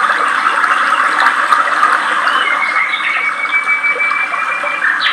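River water rushing over rocks in a steady, even stream. In the second half a thin, high, steady whistle lasts about two seconds.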